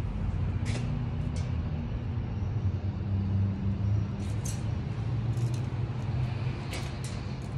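A steady low motor drone with a few short, sharp hissing clicks over it.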